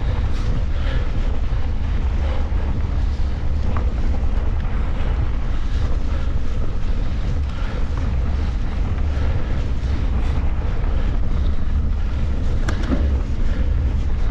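Wind buffeting the microphone: a loud, steady low rumble, with scattered small clicks and rattles over it.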